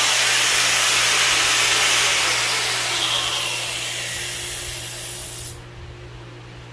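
A power tool's motor running with a steady whirring rush, then fading over a few seconds and cutting off sharply about five and a half seconds in, leaving a low steady hum.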